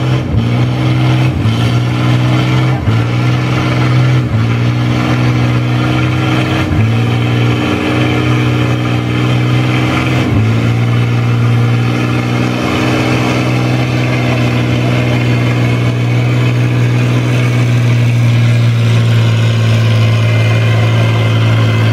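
Antique tractor engine pulling a weight-transfer sled at full load. Its speed sags and recovers several times in the first half, then holds steady. The surging is governor hunting, which comes from linkage geometry that isn't quite right with the governor mechanism.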